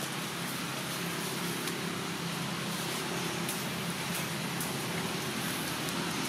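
Steady background hiss with a faint low hum underneath and a few faint clicks.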